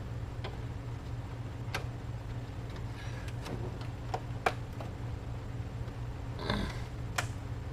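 Scattered sharp clicks and taps as a second RAM stick is worked into a desktop PC's memory slot, with a short scrape about six and a half seconds in, over a steady low hum.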